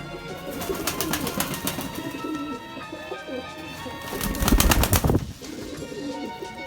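Nikolaev pigeons cooing, with a loud flurry of rapid clattering about four seconds in.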